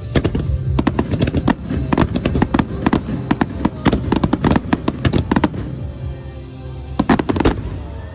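Festival fireworks bursting in rapid succession, a dense run of sharp bangs and crackles. They thin out about two-thirds of the way through, then a last cluster of loud bangs comes near the end.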